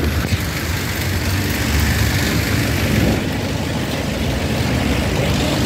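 Heavy truck engine idling: a steady low rumble.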